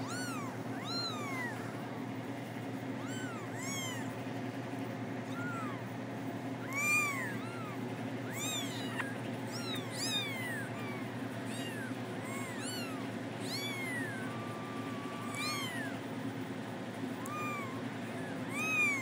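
A litter of week-old kittens mewing: thin, high cries that rise and fall in pitch, one or two a second, several kittens overlapping, over a steady low hum. The loudest cries come about seven seconds in and near the end.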